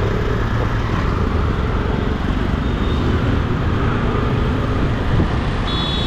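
Road traffic noise: a steady rumble of passing cars and motorbikes, with a brief high-pitched tone near the end.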